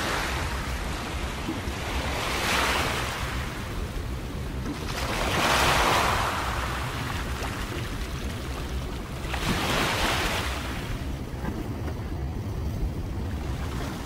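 Small waves washing in against ice-crusted shore rocks, one surge every three to four seconds, the loudest about six seconds in, over a steady low rumble.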